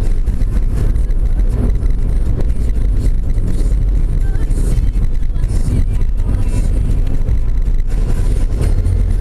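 Steady low rumble of a car's road and engine noise heard from inside the cabin while driving, with the short hiss of oncoming vehicles going past a few times.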